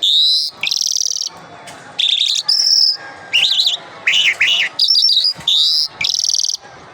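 A songbird known locally as the Irani or Mashadi jal singing loud, high phrases of slurred whistled notes and fast trills, one after another with short gaps between them.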